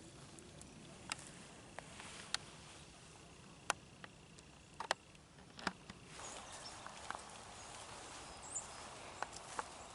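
Quiet outdoor ambience with a faint high steady tone in the first half and scattered sharp clicks and snaps, about seven of them at irregular moments. From about six seconds in comes a soft rustle of footsteps in leaves.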